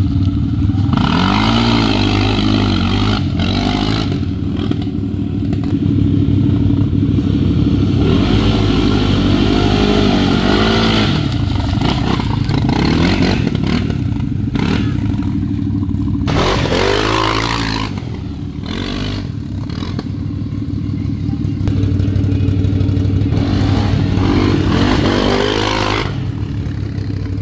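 CFMoto CForce 600 ATV's single-cylinder engine running and revving up and down over and over as it drives through mud, with its fitted aftermarket clutch kit. Its mud tires churn and throw mud.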